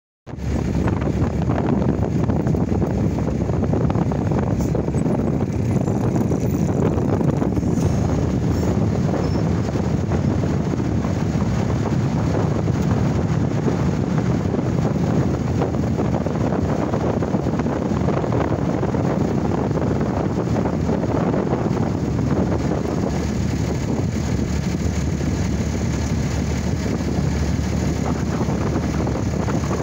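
Wind rushing steadily across the microphone over the low rumble of a pickup truck's engine crawling at low speed over slickrock.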